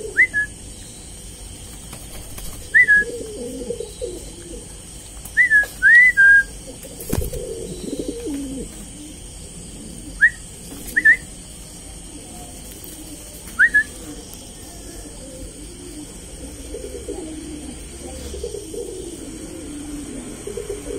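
Pouter pigeon cooing in low, murmuring stretches. Short, sharp, high chirp-like whistles cut in over it about nine times in the first fourteen seconds, some in quick pairs. One brief knock comes about seven seconds in.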